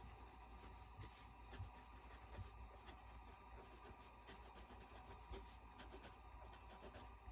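Faint scratching of a Lamy Joy fountain pen's 1.5 mm nib writing on notebook paper, in short irregular strokes.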